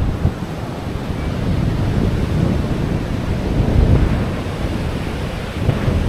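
Surf washing onto the beach, mixed with wind buffeting the microphone in a low, gusty rumble that swells about four seconds in.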